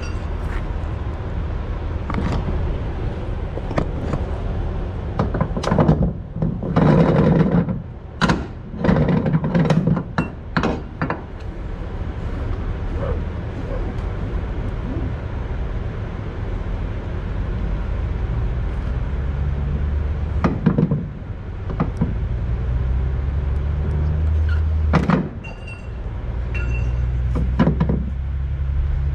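Cargo straps being thrown and pulled over a flatbed trailer's load: scattered knocks and thumps, with a louder run of thuds about seven to eleven seconds in, over a steady low vehicle engine rumble.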